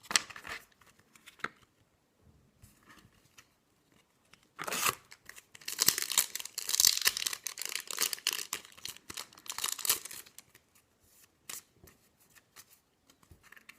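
Foil wrapper of a Yu-Gi-Oh trading-card booster pack being torn open and crinkled: a run of crackling tearing about five seconds long in the middle, with scattered small clicks and rustles before and after.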